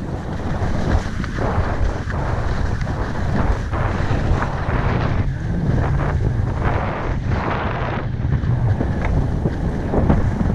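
Wind buffeting the microphone of a head-mounted GoPro as a ski bike runs downhill, its skis hissing and scraping over packed, tracked snow in repeated surges.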